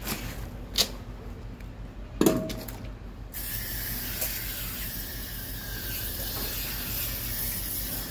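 Coil cleaner hissing steadily from a sprayer wand onto an air conditioner's coil, starting about three seconds in, after a couple of short knocks.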